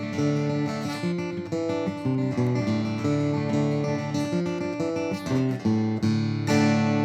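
Fender Paramount steel-string acoustic guitar played amplified through its pickups, picked single notes and chords changing every half second or so. Near the end a chord is struck and left ringing.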